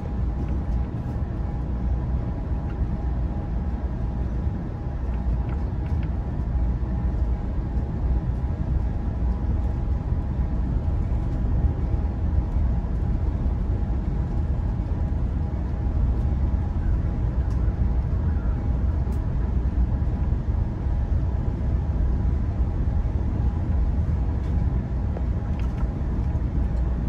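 Steady rumble of a moving Amtrak Pacific Surfliner bi-level passenger train heard from inside the car: wheels running on the rails with an even noise and a faint steady hum.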